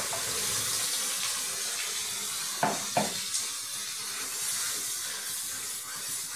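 Wet green masala paste of garlic, ginger, chilli and coriander sizzling loudly in hot oil in a metal kadhai, a steady hiss that eases a little toward the end. Two knocks of the ladle against the pan a little under halfway through.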